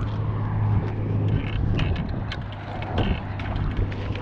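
Steady low engine hum, with scattered sharp clicks and knocks over it.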